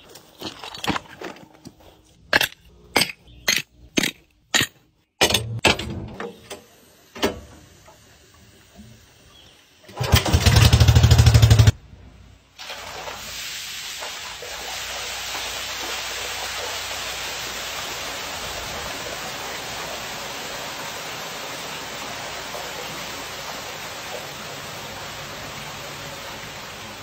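Footsteps, about two and a half a second, walking along a lay-flat pool drain hose on grass. About ten seconds in comes a short, loud buzzing, then a steady rush of water filling a pool through its return jets.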